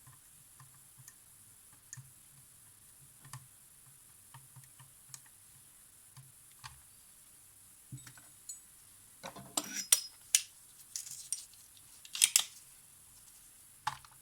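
Small hard tools and parts being handled on a workbench: scattered light ticks, then a short run of sharper clicks and clinks about two-thirds of the way in and one more near the end.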